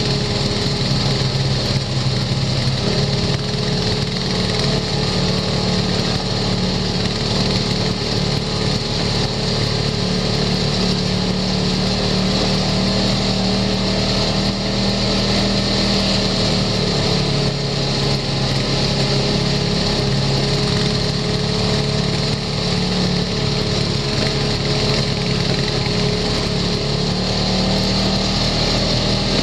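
Side-by-side UTV's engine running steadily while driving a dirt trail, its pitch shifting slightly a few times as the throttle changes.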